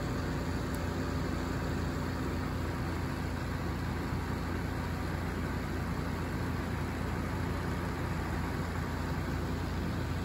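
A car engine idling steadily, with an even, unchanging hum.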